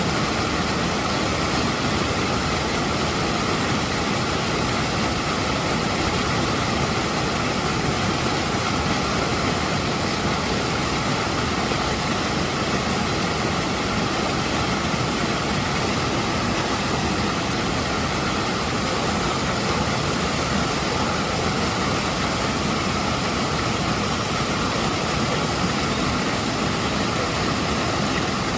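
Waterfall and stream: a steady, unbroken rush of water falling over rocks.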